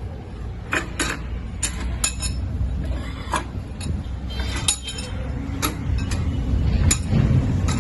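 Irregular metallic clinks and taps, about a dozen, each with a short bright ring, over a steady low machine hum that grows louder near the end.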